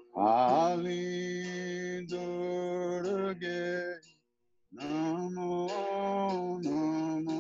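A man singing a devotional kirtan chant to the goddess in long held notes. The first note slides up into pitch, and he breaks for breath about four seconds in before singing on.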